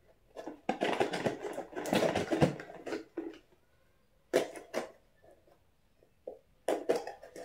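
Packing tape on a cardboard box being scratched and cut open with a small pointed tool, with cardboard rustling. It comes in bursts: a long stretch of crackling and scraping, a short burst after a pause, then more near the end.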